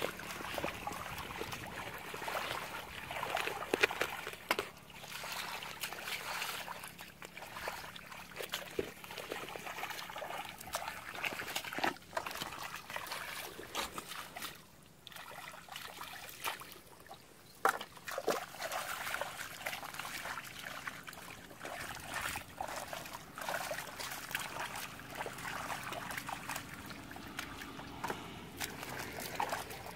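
Shallow muddy water sloshing and splashing as people wade barefoot and grope through it with their hands, with irregular small splashes and a few louder ones.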